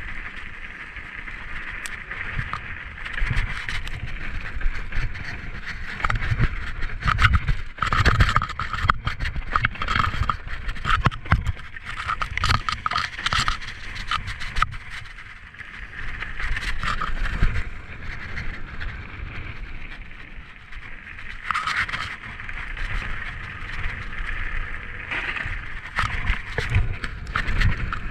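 Norco mountain bike riding fast downhill on a dirt and leaf-covered trail: tyres rolling and scraping over the ground, with frequent sharp knocks and rattles from the bike over bumps. Low wind rumble on the chest-mounted camera runs underneath.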